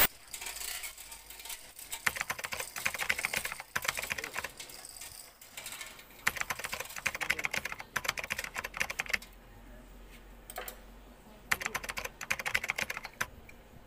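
Rapid metallic clicking and rattling in several bursts of one to three seconds, with quieter gaps between, from a truck transmission's gear shaft stack and its lifting chain being handled.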